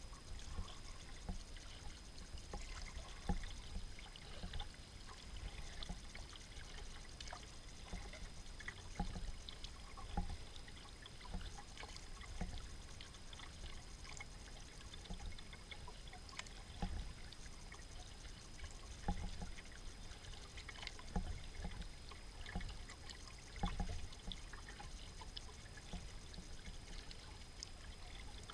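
Kayak paddle strokes in calm river water: the blade dipping and pulling with small splashes and drips every second or two, over a low steady rumble.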